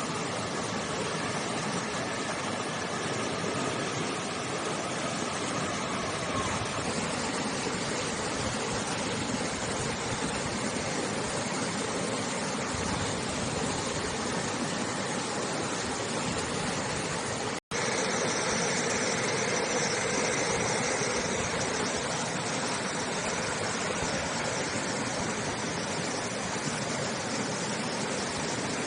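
Steady rush of river water flowing, which cuts out for an instant about two-thirds of the way through.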